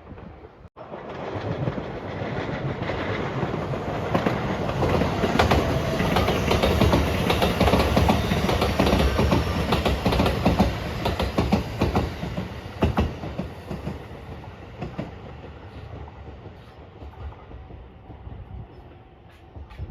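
Electric passenger train passing at speed, its wheels clacking over the rail joints; the sound builds up, is loudest in the middle, and fades away toward the end.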